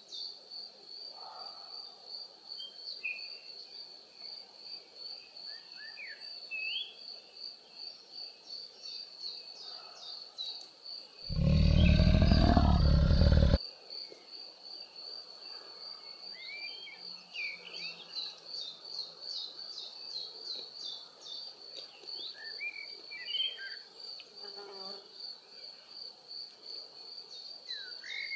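Wild nature ambience: an insect's steady pulsing high trill with scattered bird chirps. Near the middle, a loud, deep animal call lasts about two seconds.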